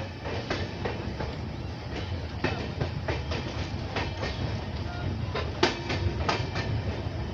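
LHB passenger coach rolling along the track: a steady low rumble with irregular sharp clacks and knocks from the wheels running over the rails.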